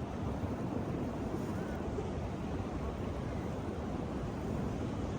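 Surf washing on a beach mixed with wind buffeting the microphone, a steady low rush.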